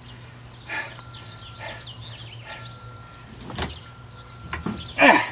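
A bicycle frame knocking and scraping against the sides of a sailboat's fibreglass cockpit locker as it is worked down inside: a handful of separate knocks and scrapes, the loudest near the end.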